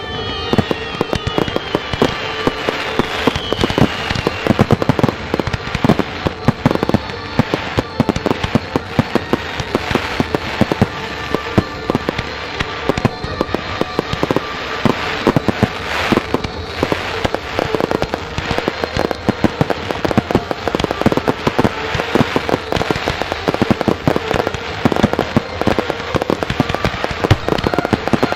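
Fireworks display: aerial shells bursting in a dense, continuous barrage of sharp bangs, many a second, with crackling.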